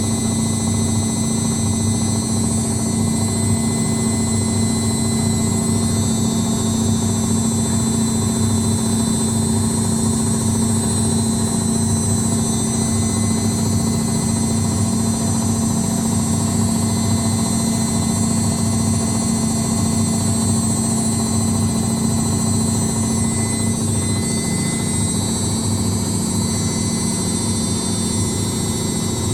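Indesit WITL 106 top-loading washing machine on its spin cycle, the drum turning at speed with a steady hum and a high whine. This is a machine whose drum knocks on spin.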